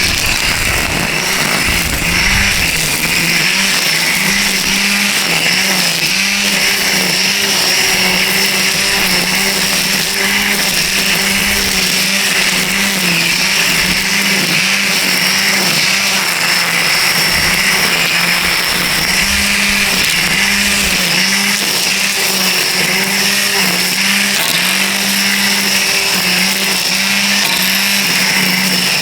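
DEWALT 20V brushless string trimmer running at speed while cutting weeds: a steady high motor hum with the whirring hiss of the spinning line. The pitch dips briefly every few seconds as the line meets the weeds.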